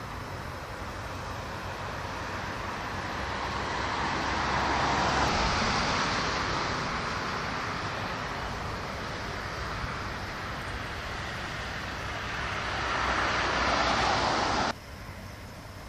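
Road traffic: vehicles passing, their tyre and engine noise swelling and fading twice. The second pass cuts off suddenly near the end.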